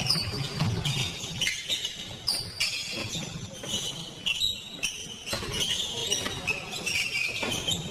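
Basketball play on a sports-hall court: the ball bouncing on the floor in irregular thuds and players' shoes squeaking, echoing in the large hall.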